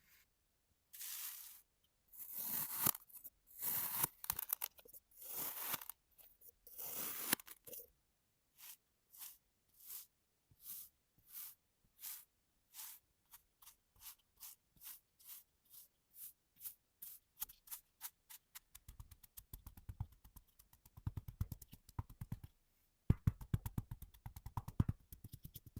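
Kinetic sand being cut, with crisp crunching and scraping. It starts with a few long, slow strokes through the sand, then short clean cuts that come faster and faster, and from about 19 seconds in a rapid dense chopping with soft thuds.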